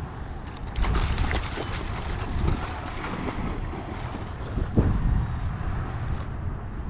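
Wind buffeting the microphone in gusts, a low rumbling noise, with a couple of short louder thumps about a second in and again near five seconds.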